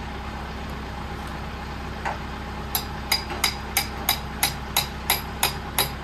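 Sharp hammer strikes on metal, about three a second with a short ringing after each, starting a little under halfway through, over a tractor engine idling steadily.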